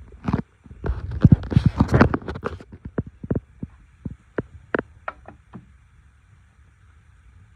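Handling noise: a rapid cluster of clicks and knocks, then single clicks spaced out more and more, dying away about two seconds before the end.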